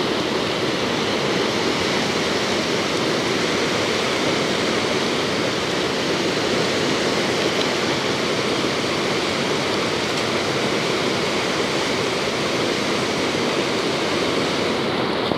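Fast, shallow river rushing over rocks and rapids: a steady, even wash of running water.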